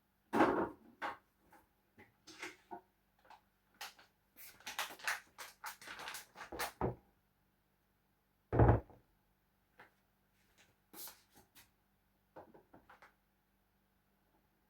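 Kitchen handling noises: scattered knocks and clicks, a run of clattering about four to seven seconds in, and one heavy thump at about eight and a half seconds.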